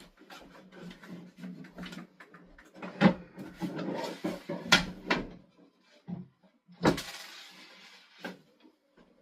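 Wooden furniture parts being handled during assembly: a few sharp knocks, the loudest three about three, four and a half and seven seconds in, with scraping and rustling between them.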